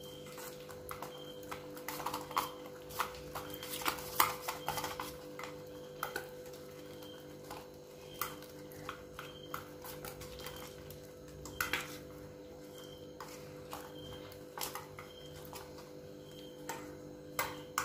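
A spoon stirring thin wheat-flour dosa batter in a stainless steel bowl, tapping and scraping against the metal in irregular clicks, busiest in the first few seconds. A steady low hum runs underneath.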